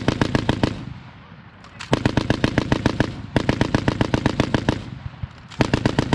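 M2 .50-calibre heavy machine gun firing on full auto in short, rapid bursts. A burst ends just under a second in, and three more follow, each about a second long with a pause of about a second between them. The last runs on past the end.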